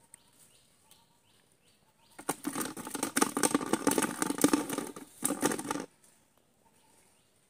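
Loud rustling and crackling right at the microphone, starting about two seconds in and stopping abruptly about three and a half seconds later.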